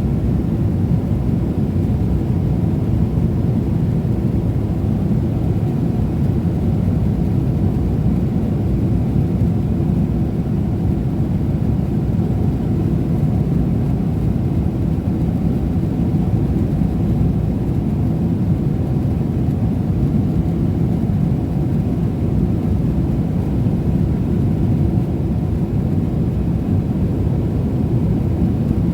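Steady low rumble of engine and airflow noise inside the cabin of a Boeing 777-300ER airliner, even and unchanging throughout.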